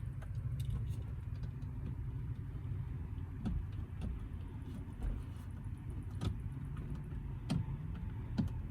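Inside a Ram ProMaster van's cabin with the ignition on: a steady low hum with a few sharp clicks scattered through it, and no engine running, from a van that the owner believes has a failed starter.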